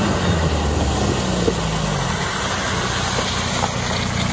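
Lifted VW Golf Mk4 estate driving through mud and puddles, its engine note rising and falling, over a steady splashing hiss of tyres and spray in the mud.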